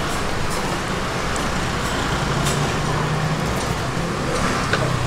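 Road traffic: a steady low rumble with an engine hum that swells about midway, and a few faint clicks.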